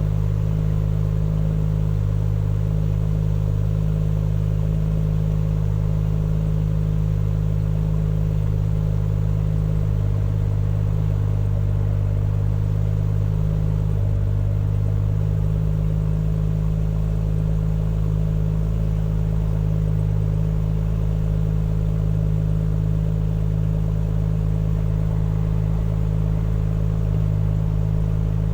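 BMW M140i's 3.0-litre turbocharged straight-six idling steadily through its exhaust, a constant low drone with no revving.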